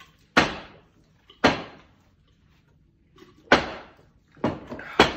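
Plastic water bottle being flipped and landing hard on a table, five sharp thuds: two about a second apart, a pause, then three more in quick succession.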